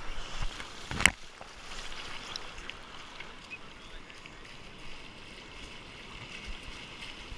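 Shallow surf wash rushing and splashing around a bodyboard as it is towed through the swash, a steady hiss of moving water. A single sharp knock about a second in.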